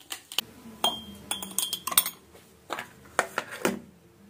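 Metal spoon clinking against a ceramic mug and other kitchenware: about ten sharp, irregular clinks, two of them ringing briefly.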